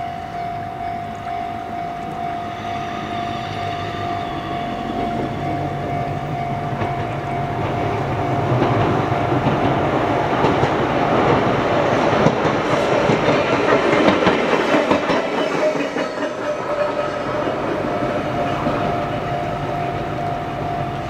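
Izuhakone Railway Daiyuzan Line electric train passing, its wheels clicking over the rail joints; it builds over several seconds, is loudest about two-thirds of the way through, then fades. A steady tone sounds alongside.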